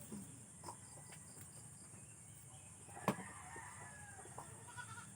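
A rooster crowing faintly, with one sharp knock about three seconds in.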